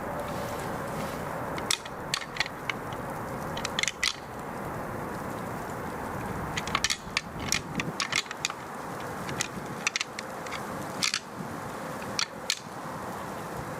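Deer antlers (rattling horns) tickled together lightly: scattered sharp clacks and ticks of tine on tine in loose clusters, the soft rattling used to imitate bucks sparring and draw in a buck.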